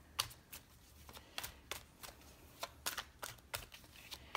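A deck of tarot cards being shuffled by hand, fairly quiet, with irregular sharp flicks and snaps of the cards.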